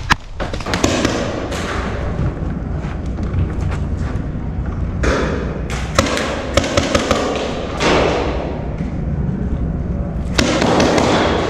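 Sharp pops of paintball markers firing, with several close together about six to seven seconds in. Between them come thumps and stretches of rustling from a player moving through the field.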